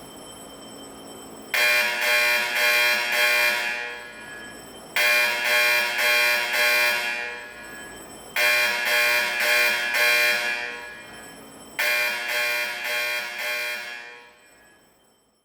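Autocall Vibratone fire alarm horns sounding the 4-4-4-4 Cadence Marching Code: four groups of four short blasts, each group trailing off in echo, then the horns fall silent near the end.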